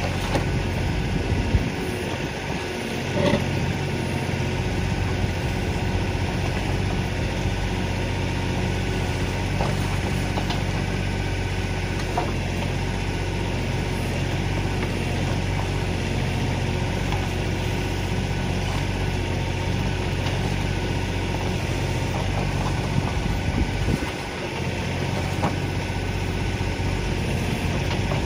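Kioti DK4510 tractor's diesel engine running steadily, its sound dipping briefly twice, with a sharp knock about three seconds in.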